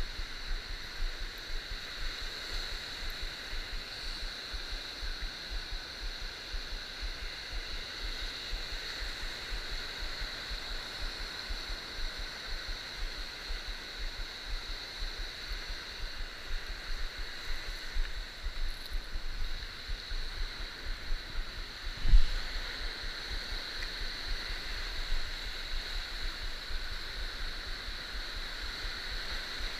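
Surf washing and breaking over a shallow coral reef, a steady rushing wash of water, with wind buffeting the camera microphone and a steady high hiss above it. One sharp thump comes about three quarters of the way through.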